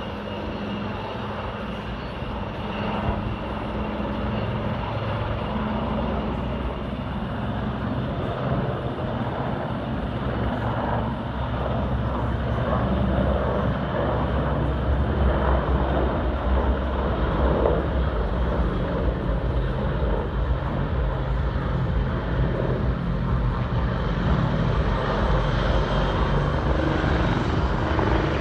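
Helicopter in flight, its rotor and turbine noise growing steadily louder as it draws closer, with a faint steady high whine above the low rumble.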